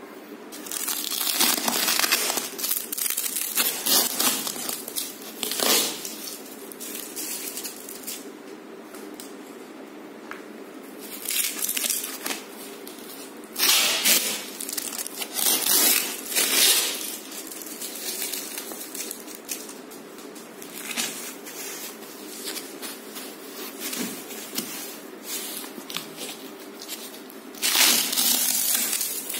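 Plastic wrapping on a rolled mattress crinkling and tearing as it is slit open with a box cutter and pulled by hand. The crinkling comes in bursts, loudest just after the start, around the middle and near the end.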